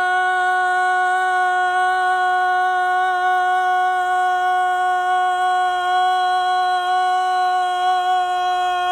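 A single long held note, steady in pitch, with a row of bright overtones above it.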